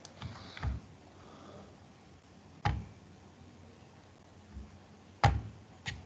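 A handful of short, sharp clicks or taps over a faint steady hiss: two close together near the start, one about two and a half seconds in, and two more a little after five seconds.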